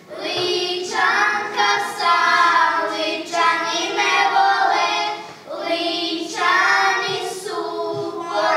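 A group of young girls singing a Lika folk song together in held, drawn-out phrases, with a short break for breath about five seconds in.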